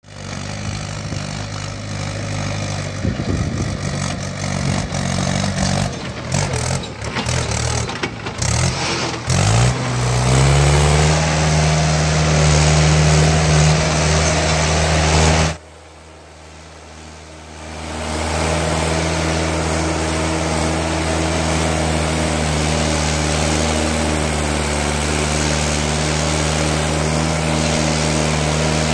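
Mahindra 575 DI tractor's four-cylinder diesel engine labouring to pull a heavily loaded trailer through soft sand. For the first ten seconds the engine sound is uneven and broken by knocks. Then it rises in pitch and holds a steady, heavy note, drops out suddenly for about two seconds around halfway, and comes back steady.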